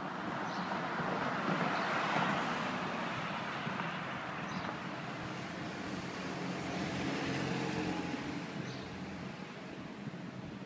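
Road traffic going by on a wide city street: the rush of a passing vehicle's tyres about two seconds in, then a motorcycle's engine passing close, swelling and fading between about six and eight seconds in.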